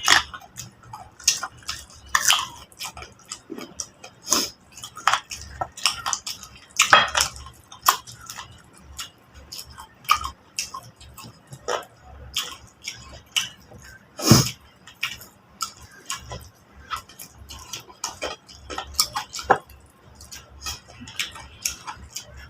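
Someone eating a meal: chewing, with irregular clicks and taps of food and hands against a plate.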